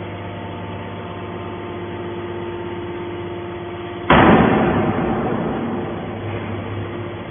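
Hydraulic metal wire baler running with a steady hum. About four seconds in, a sudden loud burst of noise that dies away over about two seconds.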